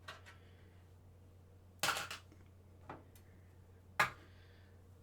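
Three sharp clicks and knocks, about a second apart, of tools and metal parts being handled while the monitor's mounting bolts are worked loose.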